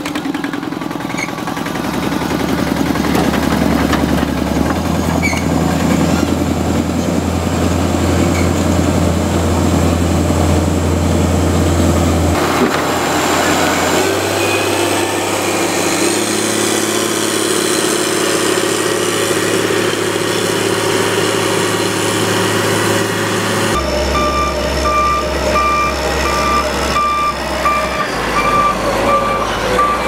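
Diesel engine of a Dresser 850 motor grader running steadily under load as it pushes clay. In the last several seconds a reversing alarm beeps in an even, repeating pattern over the engine.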